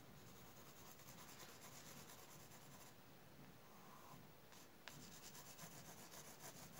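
Faint scratching of a graphite pencil on drawing paper as an area is shaded in.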